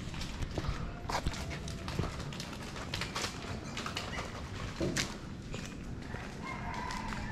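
Footsteps on concrete and the knocks of a handheld camera being carried along, irregular sharp clicks over a low, steady rumble. A faint held tone comes in near the end.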